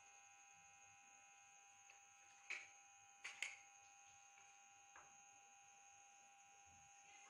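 Kitchenware clinking as burgers are assembled: one sharp clink about two and a half seconds in, a quick pair a second later, and a faint one near the end, over a steady, faint electrical hum.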